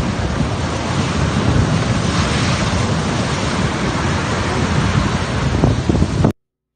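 Storm wind blowing hard and buffeting the microphone in a dense, loud rushing noise with heavy low rumble; it cuts off suddenly about six seconds in.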